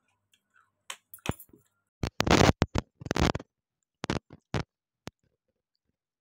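Close-miked crunching of something brittle being bitten and chewed: a run of sharp crackly crunches, loudest and densest about two to three and a half seconds in, then a few lighter crunches before it stops.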